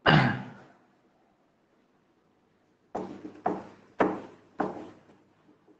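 Whiteboard duster wiped across a whiteboard: one stroke at the start, then four quick strokes about half a second apart from about halfway through.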